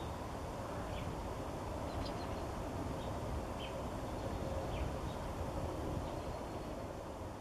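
Yellow-rumped warbler giving faint, short, high chip notes, about one a second, over a steady low background rumble.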